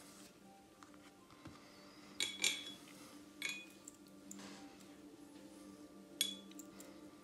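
A paintbrush clinking lightly against the paint palette as watercolour is mixed: four sharp clinks with a short ring, two close together about two seconds in, one a second later, and one near the end.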